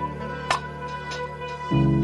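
Slow instrumental background music: held chords with single notes struck over them. A new, louder and lower chord comes in near the end.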